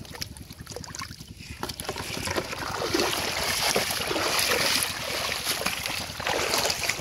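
Water splashing and sloshing as a person wades through shallow floodwater, loudest in the middle.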